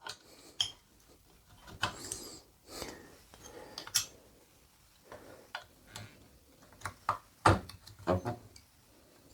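Scattered clicks, knocks and clinks of metal parts being handled: the press fingers taken off a bow press and fitted onto the mini crossbow adapter. The loudest knock comes near the end.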